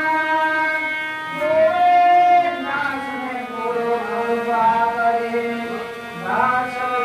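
A male singer singing a devotional Hindi bhajan in long, drawn-out notes over steady instrumental accompaniment.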